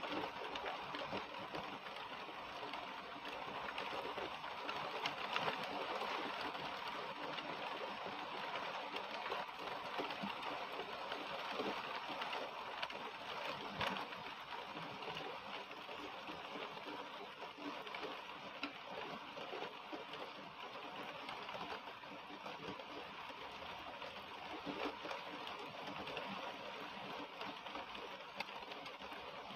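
Heavy rain falling steadily on trees, an even hiss with scattered sharper drops.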